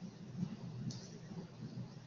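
Quiet room tone with a faint, uneven low murmur and one brief soft hiss about a second in.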